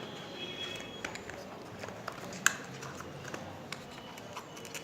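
Light handling of a phone's retail box and accessories during unpacking, with a few soft clicks and one sharper tap about halfway through.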